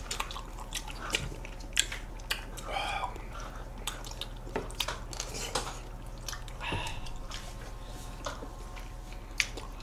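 Close-miked mouth sounds of two people eating ice cream: scattered wet smacks and clicks, with pink plastic spoons scraping in small ice cream cups. A steady low hum runs underneath.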